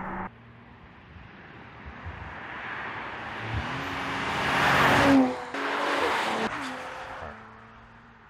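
Audi RS5 Sportback's 2.9-litre twin-turbo V6 accelerating as the car drives by. The engine note rises to its loudest about five seconds in, drops in pitch twice as it shifts up, then fades away.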